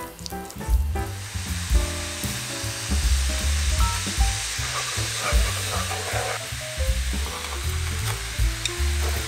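Garlic soy sauce with honey sizzling and bubbling in a frying pan, starting about a second in, over background music with a strong bass line.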